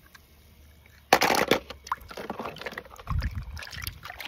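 Water splashing and sloshing in a tub as a hand swishes a toy car through it, in irregular splashes starting about a second in.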